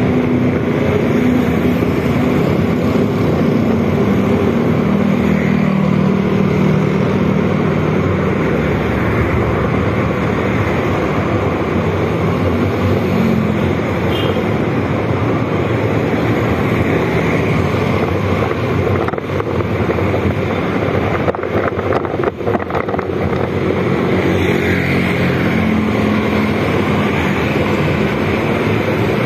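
Motorcycle engine running while riding in traffic, its pitch rising and falling with speed, under heavy wind noise on the microphone.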